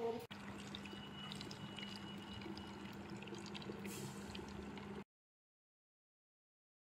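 Small electric water-jug dispenser pump running with a steady hum while water pours from its spout into a plastic bottle. About five seconds in, the sound cuts off abruptly.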